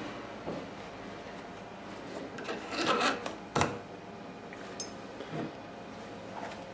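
Leather work gloves rub and scrape while a heated ball bearing is worked onto a steel motor rotor shaft as a shrink fit. There is one sharp metallic click about three and a half seconds in.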